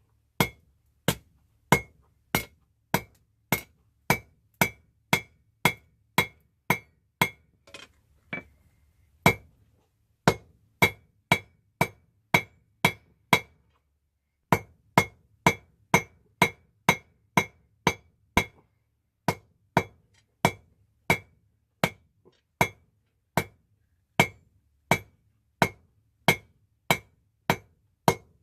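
Hand hammer striking hot rebar on an anvil to draw out the end of the bar. The blows come steadily at about one and a half a second, each with a bright metallic ring, with two short breaks in the rhythm.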